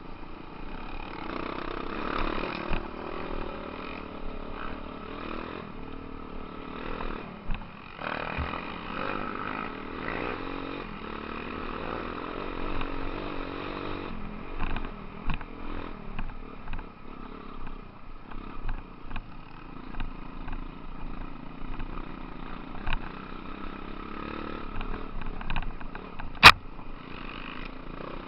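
Dirt bike engines running along a rough forest trail, heard from a camera on one of the moving bikes. The engine note rises and falls with the throttle over many small knocks and rattles from the bumpy ground. One sharp crack near the end is the loudest sound.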